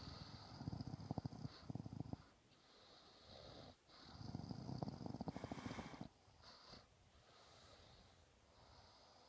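A sleeping person snoring: two long fluttering snores of about two seconds each, the second starting about four seconds in, with quieter breathing between and after.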